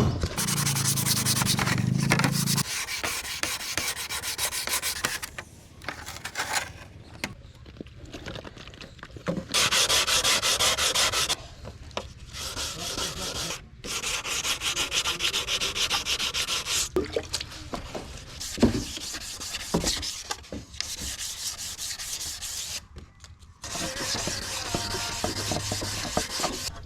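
Sandpaper rubbing over a scooter's body panels during paint preparation: dense scraping in spells of a few seconds, with short pauses between them.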